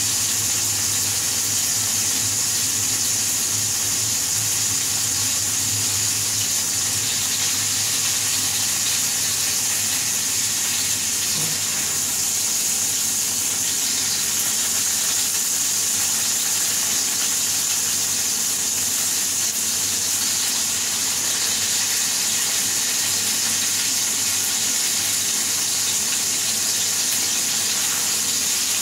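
Bacon-wrapped burger patties sizzling in a hot frying pan, a steady hissing fry.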